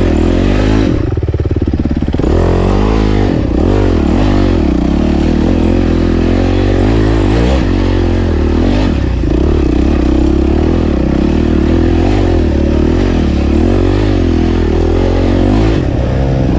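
Enduro dirt bike engine revving up and down over and over as it is ridden, the pitch rising and falling every second or two.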